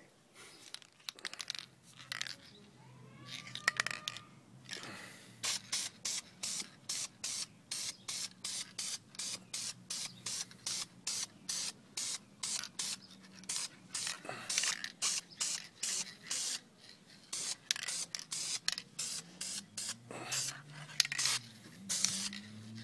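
Aerosol spray-paint can hissing in many short bursts, about two a second, starting about five seconds in.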